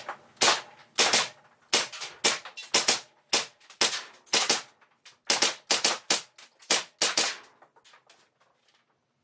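Tokyo Marui Hi-capa gas blowback airsoft pistol firing on green gas: a string of about twenty sharp shots, some single and some in quick doubles, each with the slide snapping back. A few faint ticks follow after the last shot.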